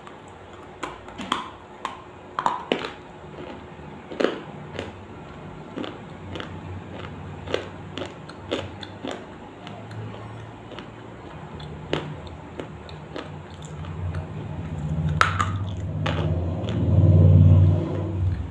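Crisp food bitten and chewed close to the microphone: a long run of sharp crunches, one or two a second. Near the end a low rumble swells and becomes the loudest sound.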